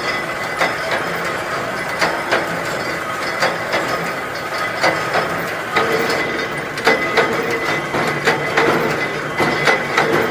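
Ammunition production machinery running with a steady hum and irregular metallic clicks and clatters.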